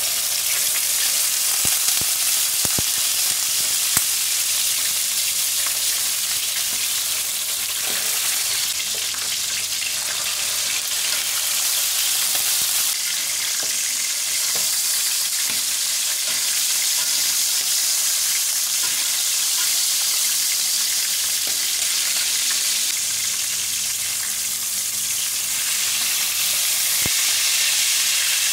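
Tambakol fish frying in hot cooking oil: a loud, steady sizzle with a few sharp pops of spitting oil.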